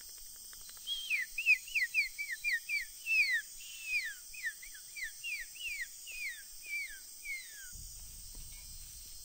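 A quick series of about twenty short whistled notes, each sliding down in pitch, coming two to three a second for about six seconds before stopping.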